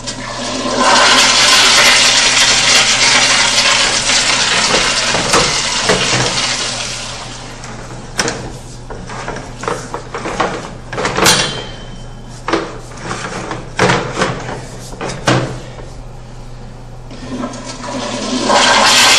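A toilet flushing, a loud rush of water lasting about six seconds. It is followed by a series of sharp knocks and clunks, and near the end water starts rushing again.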